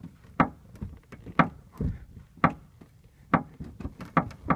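Short creaks from the sheet metal above the right rear wheel well of a 2003 Mustang Mach 1, pushed on by hand from inside the trunk, repeating about once a second. It takes only light pressure to make it creak; the owner cannot yet tell what is causing it.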